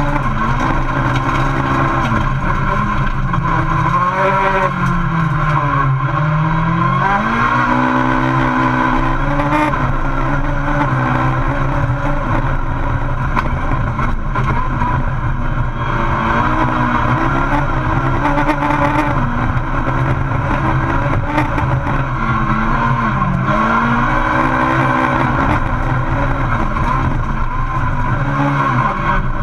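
VW Polo Super 1600 rallycross car's 1.6-litre four-cylinder engine at racing revs, heard from inside the stripped cockpit. The revs fall about four to six seconds in as the car slows for a corner, then climb again through the gears, with another dip and climb near the end.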